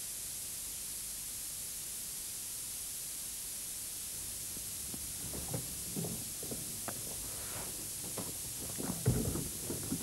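Steady hiss of an old videotape recording. In the second half come scattered soft knocks and rustles, and a louder thump about a second before the end.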